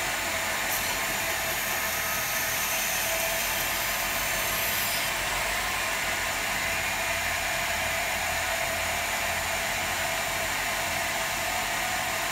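Homemade 2x72 belt grinder, driven by an old treadmill motor, running steadily with its abrasive belt hissing over the wheels and a faint low pulsing, harsher in the high hiss for about the first five seconds.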